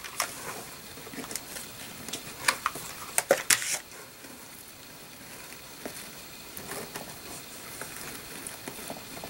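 Hands pressing and tucking tulle trim around a train case's mirror frame while hot-gluing it: light scattered rustles and clicks, with a few sharper ticks in the first four seconds, then quieter handling.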